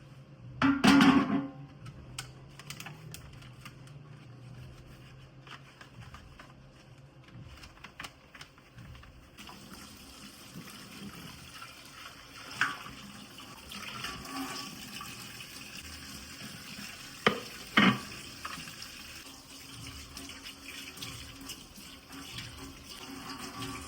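Kitchen tap running into a sink as a steady hiss from about ten seconds in, with scattered clicks and sharp knocks; a loud knock comes about a second in, and two more near the end.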